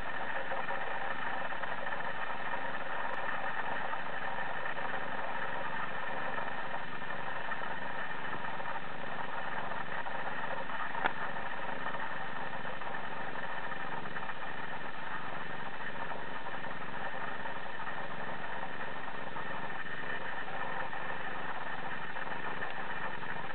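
A steady, even hum with no rise or fall, and a single faint click about eleven seconds in.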